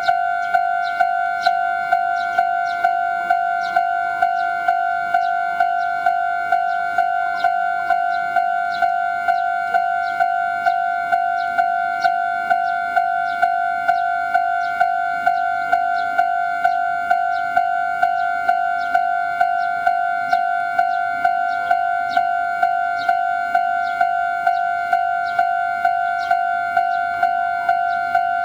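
Japanese electronic level-crossing warning bell ringing over and over at an even pace of about two strikes a second, each strike ringing on with two steady tones underneath: the alarm warning that a train is approaching.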